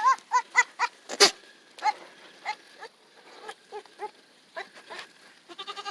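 Hormonal goats making a string of short, pitched, wavering calls, quick-fire in the first second and then more spread out, with a fast stutter of calls near the end. A sharp knock about a second in is the loudest sound.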